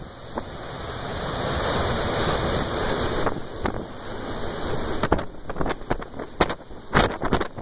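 Strong wind rushing over the microphone, with heavy storm surf breaking behind it. From about five seconds in, a run of sharp crackles and taps hits the microphone.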